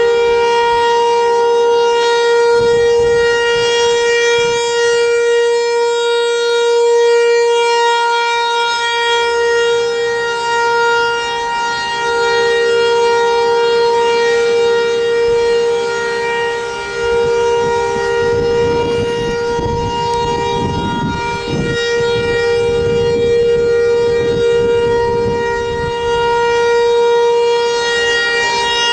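Federal Signal 508 outdoor warning siren sounding a steady alert tone in a weekly test, its level swelling and dipping slightly as it sweeps around. A low rumble joins in for several seconds in the second half.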